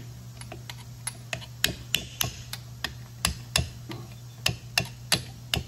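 A small hammer tapping a punch to drive the pin out of a rusty four-piston disc brake caliper. The pin is working loose. The taps are quick, sharp and metallic, about three a second, and grow harder after the first second.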